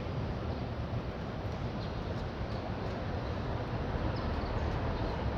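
Steady outdoor ambience with a low rumble, and a few faint, short chirps from small birds now and then.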